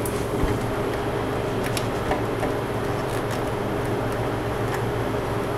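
A steady machine hum, with a few faint light clicks from handling the thin wires of a motorcycle LED strip kit.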